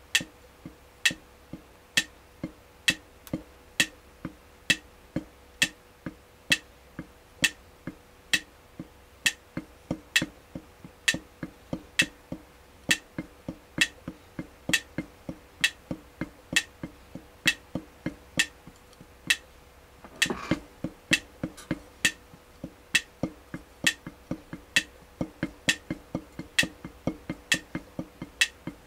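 Drumsticks tapping on a drum practice pad, dull strokes in time with a metronome's sharp, evenly spaced click of a little over one per second. The strokes come more often between clicks over the last few seconds.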